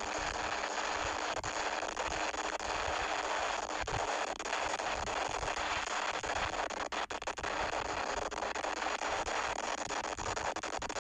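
Wind and road noise rushing over an action camera's microphone on a moving vehicle: a steady hiss with low rumble, broken by frequent crackles and pops.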